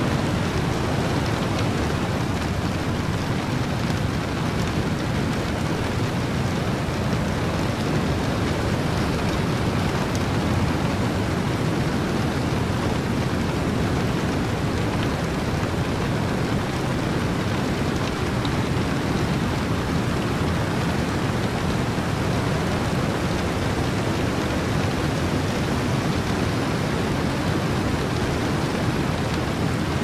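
Steady rain and wind: one continuous, even noise, heaviest in the low range, with no single drops, thunder claps or breaks standing out.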